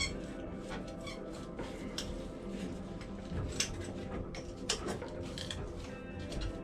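Scattered light metallic clinks and taps, as of tools and engine parts being handled, over a steady background of sustained tones.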